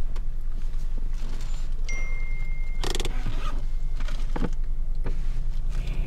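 Hyundai Venue's engine idling steadily, heard from inside the cabin while stopped in traffic. About two seconds in, a single high beep holds for about a second and is followed at once by a short clatter, with a few light clicks around it.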